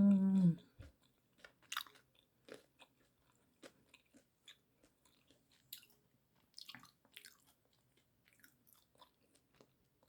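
A person chewing fried carioca rice balls close to the microphone: irregular soft wet clicks and smacks of the mouth, after a brief hummed "mm" at the very start.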